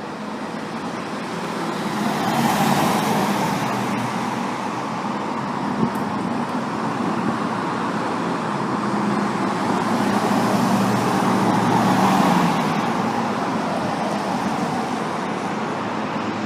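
Road traffic going by: one motor vehicle swells up and fades about three seconds in, and another passes around twelve seconds in.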